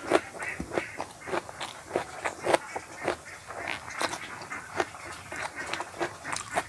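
A person chewing food with the mouth open: wet, irregular smacks and clicks, several a second.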